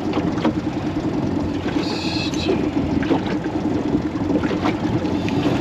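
Small boat's outboard motor running steadily at low trolling speed, with a few faint knocks and a brief higher-pitched sound about two seconds in.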